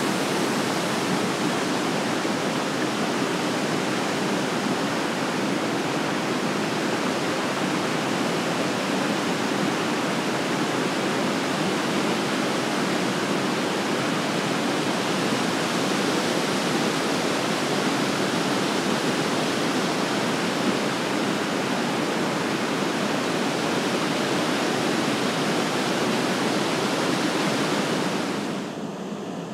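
Waterfall and rapids: white water pouring over rock ledges, a steady rushing hiss. Near the end it drops suddenly to a quieter, softer water sound.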